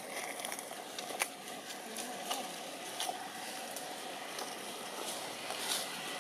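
Steady outdoor background noise with scattered faint clicks and ticks, one sharper click about a second in.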